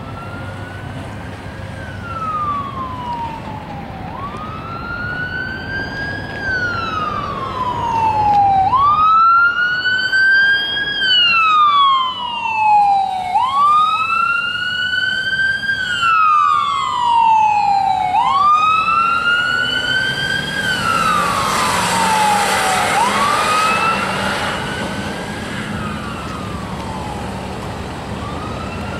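Ambulance siren wailing, its pitch slowly rising and falling about every four and a half seconds. It grows louder as the ambulance comes by and fades away in the last several seconds.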